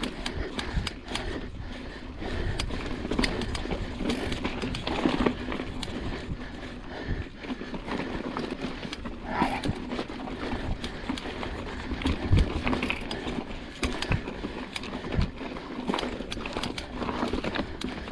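Mountain bike climbing a steep, technical rock section: tyres, chain and frame knocking and rattling over stones, with many sharp clicks and knocks throughout.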